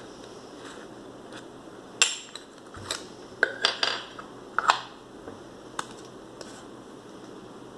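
Small plastic clicks and taps as a film canister's snap cap is pulled off and a 35 mm film cassette is taken out and handled. A sharp click about two seconds in is the loudest, followed by a quick run of lighter clicks and taps.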